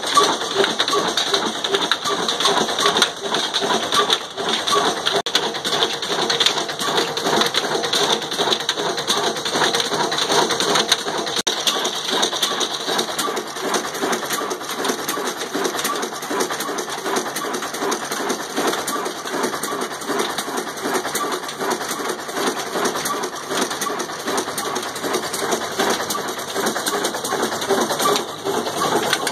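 Old black 'desi' horizontal single-cylinder diesel engine of the Ruston Hornsby type running steadily, its flywheel and flat belt driving a line shaft to a flour mill (chakki). A steady, rapid, even clatter.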